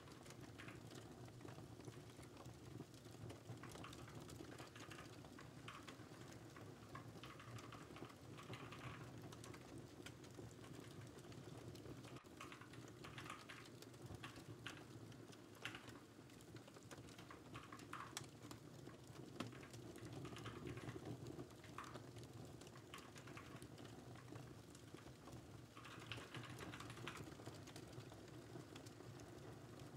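Faint computer keyboard typing in short runs of keystrokes with pauses between, over a low steady background hum and the faint crackle of a fireplace recording.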